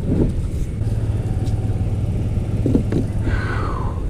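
Plastic fishing kayak hull dragged over dry dirt and grass, a steady low rumbling scrape.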